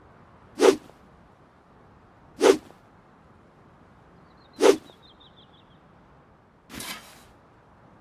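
Handmade longsword swung through the air four times, each swing a short, sharp whoosh about two seconds apart; the last swing, near the end, is longer and softer.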